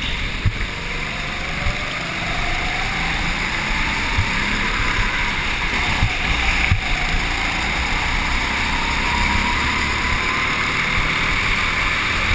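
Go-kart motor running at speed, heard from on board the kart, over a dense rush of noise. Its pitch rises during the first few seconds as the kart accelerates.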